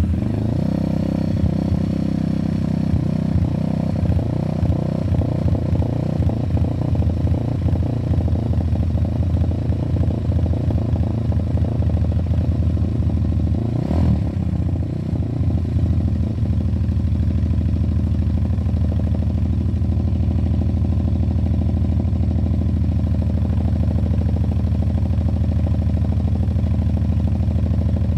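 WPB Beast 190 pit bike's 190cc four-stroke single-cylinder engine running just after its first-ever cold start, with the choke on. It runs unevenly for about the first sixteen seconds, with a sharp click around fourteen seconds in, then settles to a steady idle.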